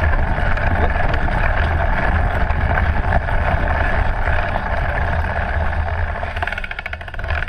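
Mountain bike ridden fast on a dirt trail: steady tyre-on-dirt rolling noise with low wind buffeting on the bike-mounted camera's microphone. Near the end it quietens briefly and a rapid ticking comes in.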